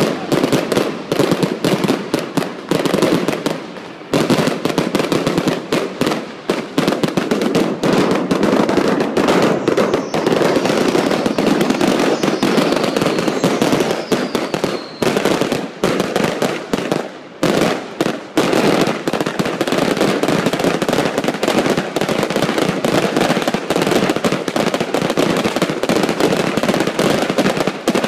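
Daylight fireworks going off in a rapid, nearly continuous barrage of bangs and crackling, easing off briefly a couple of times, with a faint falling whistle partway through.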